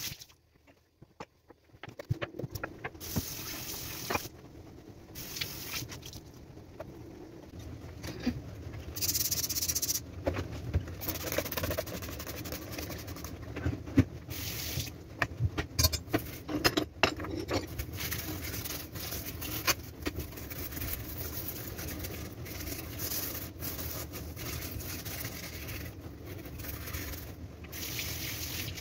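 Kitchen cleaning sounds: a steady rush of running tap water with frequent clinks and knocks of metal hob grates and dishes being handled. The sound stops and starts abruptly several times.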